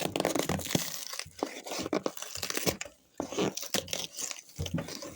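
Shipping box and its wrapping being torn open and crumpled, a run of crackling, crunching tears with a short pause about three seconds in.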